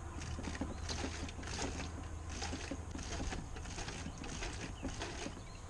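An outboard's rubber fuel-line primer bulb being squeezed over and over by hand, gasoline spurting out of the open end of the line with each squeeze, about two a second. This is gas being pumped through to rinse dirt out of the old fuel line.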